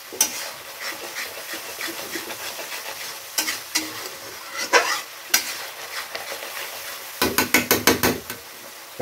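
Spice paste sizzling in hot oil in a pan while a spatula stirs and scrapes it, with a few sharp scrapes and a quick run of knocks about seven seconds in. This is the masala being fried down until it reddens and its water cooks off.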